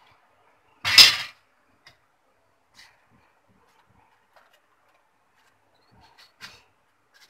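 A wire frying basket loaded with fried banana chips gives one short metallic clatter against the pan about a second in, followed by a few faint light taps.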